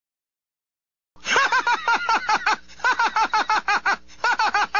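Stewie Griffin's really demented laugh, dubbed from Family Guy: quick runs of repeated ha's starting about a second in, broken by two short pauses.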